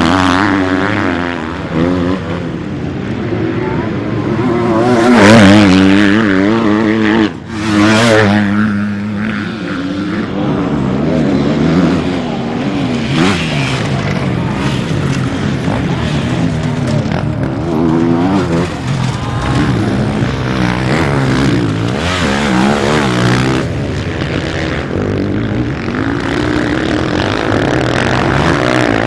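Several single-cylinder motocross bikes racing past, their engines revving up and down with the throttle and gear changes and overlapping one another. The loudest pass comes about five seconds in.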